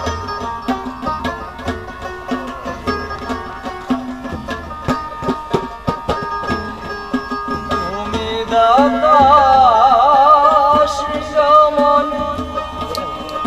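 Live Bengali folk music: tabla strokes over held harmonium tones, with a plucked string instrument. About eight and a half seconds in, a louder wavering melody line with strong vibrato comes in for a few seconds.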